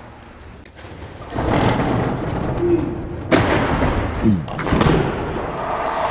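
Noisy handheld outdoor footage with a sudden thud about three seconds in, followed by a person's voice crying out.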